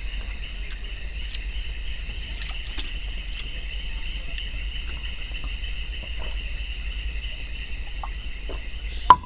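Night chorus of crickets and other insects: a steady high buzzing with a fast, pulsing chirp over it. A single sharp click comes near the end.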